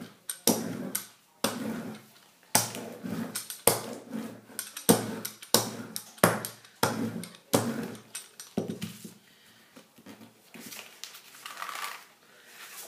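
A hand-held rubber brayer rolled back and forth over a sheet of paper on a painted plate, pressing the paper down to take a monoprint. It makes about a dozen rolling strokes a little over half a second apart, with softer paper handling after about nine seconds.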